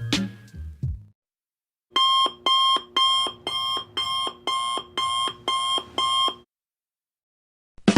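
Digital alarm clock beeping: about ten short electronic beeps at roughly two a second, starting about two seconds in and stopping about a second and a half before the end. The end of a music clip fades out just before the beeps.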